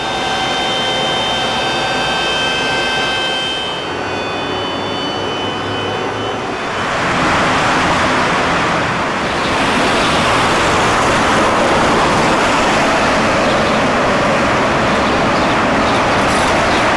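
A steady whine with overtones for the first few seconds, then the steady rush of street traffic noise.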